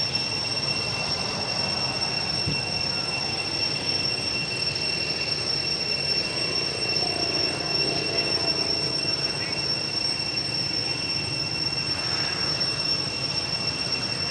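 A steady high-pitched whine held on one pitch over a constant hiss of background noise.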